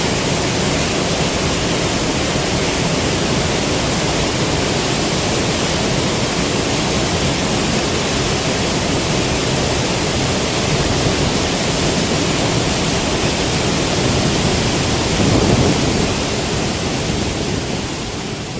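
Waterfall: a loud, steady rush of falling water, swelling briefly a little after the middle and fading out near the end.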